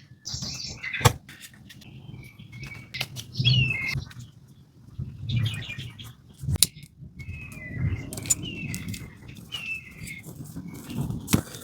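Short bird chirps every second or two, over close rustling with a few sharp clicks and knocks.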